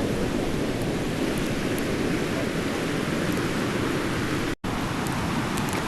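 Fast mountain river rushing: a steady, loud wash of water noise that cuts out for an instant about three-quarters of the way through.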